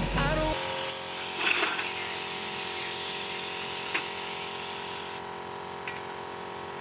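Background music cuts out in the first half-second, leaving a steady hiss with a few faint knocks.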